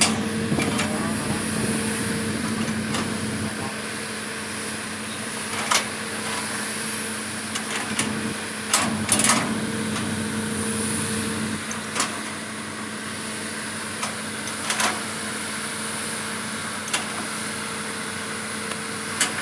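A vehicle engine idling with a steady hum, which fades after about twelve seconds, under scattered sharp knocks and clicks.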